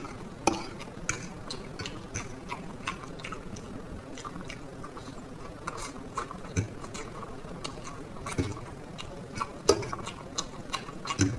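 A person eating black bean noodles close to the microphone: chewing with many short, irregular wet mouth clicks and smacks, a few of them louder.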